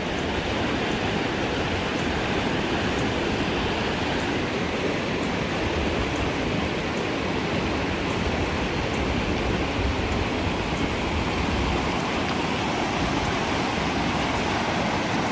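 Small river rapids rushing steadily, with white water churning over a shallow riffle.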